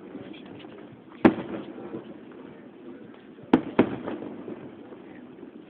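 Fireworks exploding: one bang about a second in, then two more in quick succession past the halfway mark, each followed by a rolling echo that dies away.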